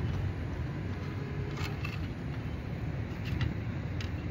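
Steady low background rumble with a few faint clicks of a screwdriver tester's tip against the laptop's metal hinge bracket, about one and a half seconds in, around three seconds in and near the end.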